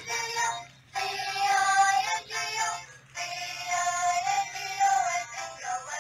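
A toy ATM coin bank's built-in sound chip playing an electronic tune with a synthetic singing voice, in short phrases with brief pauses.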